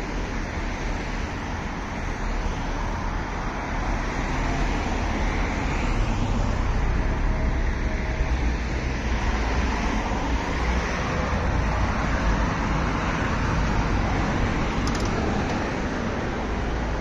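Road traffic noise, a steady rush with a deep rumble that swells for several seconds in the middle as a heavier vehicle passes.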